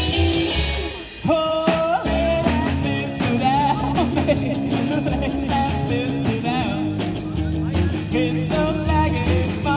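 Live rockabilly band playing: electric guitar picking out a melodic line with bent notes over a steady pulse of upright double bass and drums, with a brief break about a second in.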